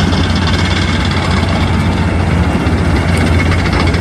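A motor running steadily: a constant low hum under an even hiss.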